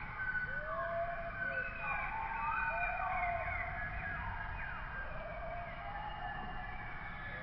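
Several spotted hyenas calling over one another, with overlapping calls that glide up and down in pitch.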